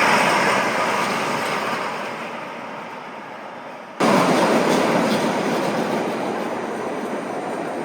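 Roller coaster train running on its steel track with a rumbling clatter. The sound fades steadily over the first few seconds, jumps back to full loudness about four seconds in, then slowly eases.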